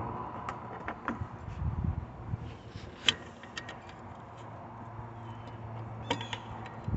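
Scattered light metallic clicks and taps as the hood latch bolts are started by hand, over a faint steady low hum.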